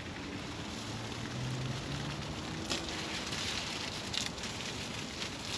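Fire burning with a steady hiss and a few sharp crackles.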